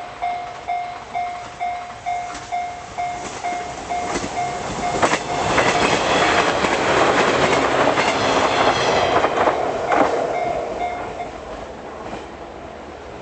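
Japanese level-crossing bell ringing at about two dings a second while the Kitakinki limited express train passes. The train's rumble builds about four seconds in, clatters over the rail joints for about five seconds, then fades. The crossing bell stops near the end.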